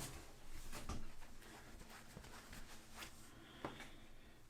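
Faint handling sounds: a few light clicks and taps as shaving gear is moved and picked up, over quiet room tone.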